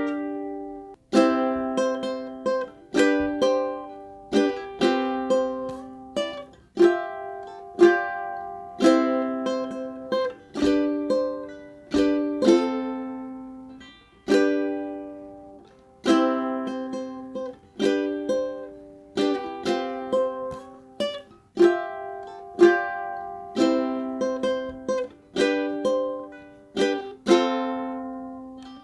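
BWS UK-26 ukulele, a sapele-bodied ukulele with nylon strings, played alone: chords strummed in a steady rhythm, each ringing and fading before the next, with the chord changing every second or two.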